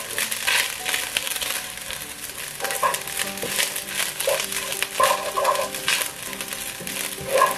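Rice sizzling in a hot non-stick wok while a wooden spatula stirs and scrapes it in quick, repeated strokes, with soft background music.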